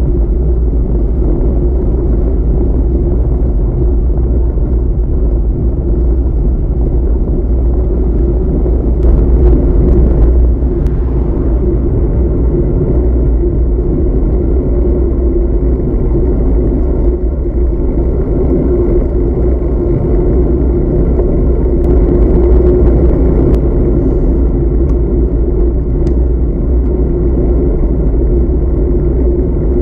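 Steady wind rumble on a bicycle-mounted camera's microphone while riding at speed, with the tyres running on asphalt. The rumble swells briefly about nine seconds in and again a little past twenty seconds.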